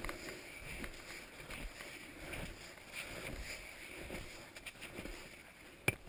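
Skis sliding through snow and poles being planted in a steady stride, a soft swish a little more than once a second. A sharp click comes just before the end.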